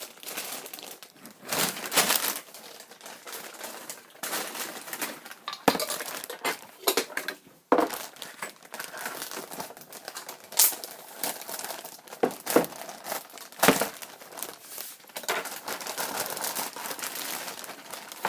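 Parcel packaging crinkling and rustling as it is opened and its contents pulled out by hand, irregular, with louder sharp crackles every few seconds.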